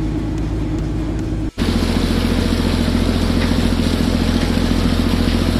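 Fishing trawler's diesel engine running steadily, a low drone. About a second and a half in it cuts to a louder drone with a steady hiss of wind and water from the wake over it.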